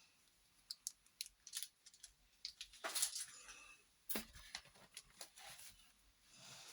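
Art supplies and their packaging being handled: scattered small clicks and taps with a few brief rustles, the loudest about three and four seconds in.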